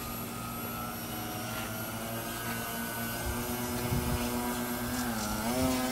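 Yak 55 foam RC airplane's motor and propeller running with a steady buzzing drone; about five seconds in its pitch starts to waver up and down.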